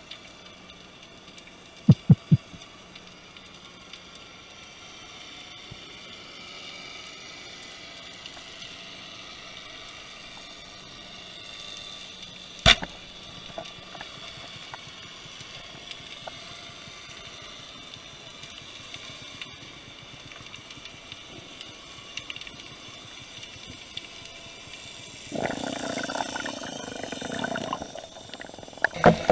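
Underwater ambience on a speargun-mounted camera: a steady hiss, three quick sharp clicks about two seconds in and a single click near the middle. In the last few seconds a louder rushing, churning noise sets in as a speared fish struggles on the spear line.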